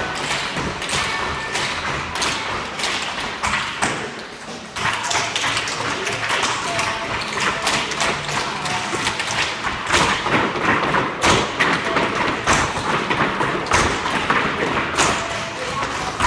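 Many tap shoes tapping and stamping unevenly on a wooden floor as a group of children dance a beginner tap routine together. There is a brief lull about four seconds in.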